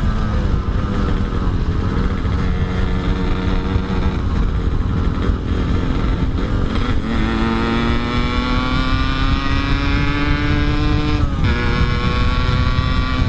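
Yamaha RX-King two-stroke single-cylinder motorcycle engine running under way, its revs climbing steadily for several seconds before a gear change drops the pitch about two seconds before the end. Heavy wind noise on the microphone.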